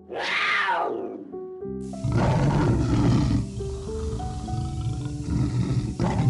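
An animal call that falls sharply in pitch, then deep, rough roar-like calls in long stretches, over soft piano music.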